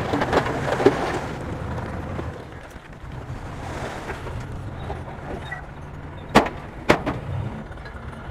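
Bulldozer diesel engine running steadily, louder for the first two seconds and then easing off. Two sharp knocks about half a second apart come a little after six seconds in.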